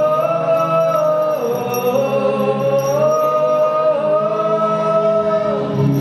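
Background music: a slow song in which a high voice holds long notes, stepping to a new pitch every second or two, over sustained low chords.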